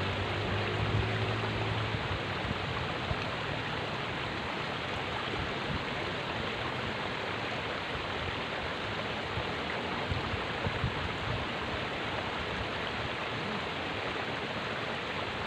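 Water running steadily in a small irrigation ditch, an even rushing with no breaks.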